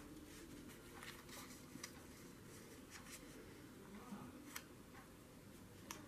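Near silence, with faint rustles and a few light taps of paper pieces being slid and laid on a paper journal page.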